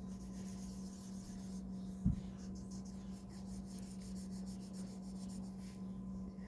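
Drawing strokes on paper: a pen or pencil scratching in quick, irregular strokes, over a steady low hum, with a single soft thump about two seconds in.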